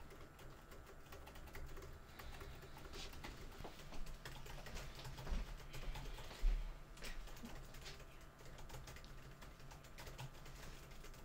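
Rapid typing on a laptop keyboard: a steady stream of soft key clicks with a few harder taps, over a low room hum.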